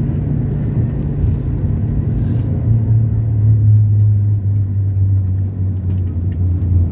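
Steady low rumble of a Boeing 737-700's engines and airframe heard from on board as the aircraft rolls along the ground after landing, with a deep drone that grows louder about three seconds in.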